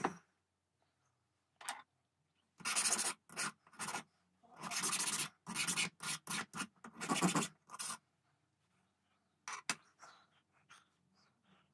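Hand filing on a small metal part of an adjustable rifle peep sight: a run of short, uneven file strokes, then a few light clicks and taps near the end.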